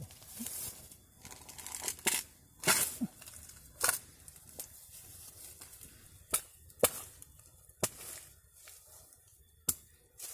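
Dry bamboo leaf litter and twigs crackling and snapping as hands dig through it for a bamboo shoot: about six sharp snaps, with softer rustling crunches between.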